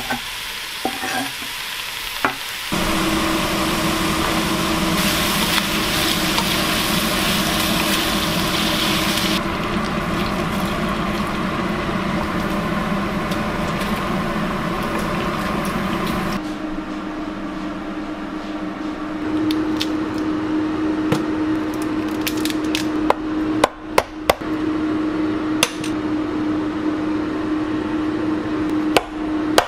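Diced pork fat tipped from a wooden cutting board into a wok, then sizzling steadily as it fries over low heat and is stirred with a wooden spatula. After a cut, a few sharp cracks and clicks near the end as cooked crab shells are broken apart by hand.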